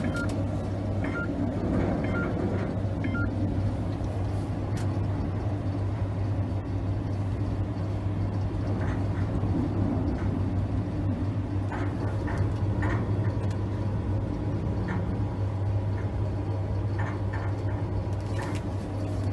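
Steady low hum and rumble inside a tower crane operator's cab as the crane is set moving in strong wind, with faint short clicks scattered through.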